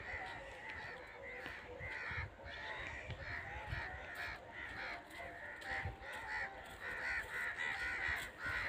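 A flock of birds calling: many short calls, several a second, overlapping with no real pause.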